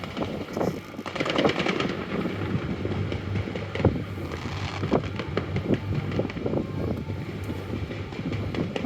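Fireworks going off: a rapid string of sharp pops and bangs over a steady rumble, with one louder bang about four seconds in.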